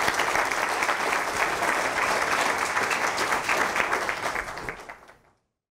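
Audience applauding, many hands clapping together; the applause fades out about five seconds in.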